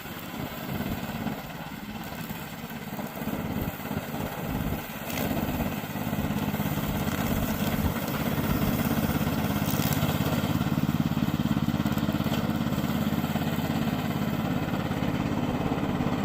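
Remote-control slope mower's engine running, uneven for the first few seconds, then louder and steady from about six seconds in.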